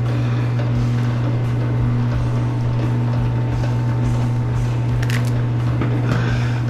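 Electric wire-stripping machine's motor running steadily with a low hum and a faint regular pulse about once a second, and a single sharp click about five seconds in.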